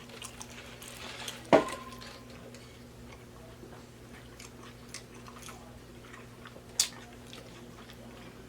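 Close-up eating sounds: biting and chewing. A sharp click about a second and a half in is the loudest sound, with a brief ring; another click comes near seven seconds. A steady low hum runs underneath.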